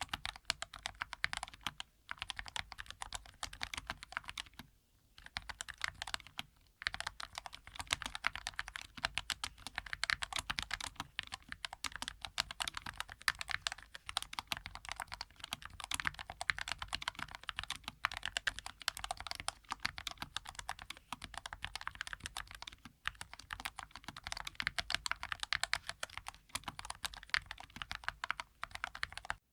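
Rapid, continuous typing on a Skyloong SK61S mechanical keyboard with Gateron Yellow linear switches and square typewriter-style keycaps. Short pauses come about five and seven seconds in, and the typing stops at the end.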